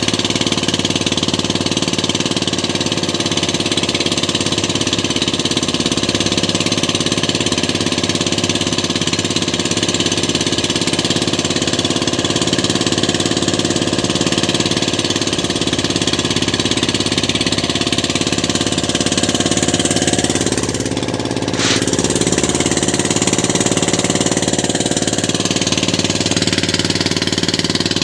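Engine of a motorized outrigger fishing boat running steadily with a rapid knocking beat, dipping briefly about three-quarters of the way in.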